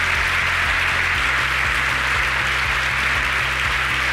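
Banquet audience applauding steadily, with music playing underneath.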